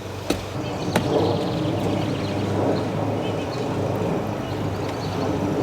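Two sharp strikes of a hand tool chopping at a half-rotted tree stump, about a second apart near the start, over a steady low mechanical hum.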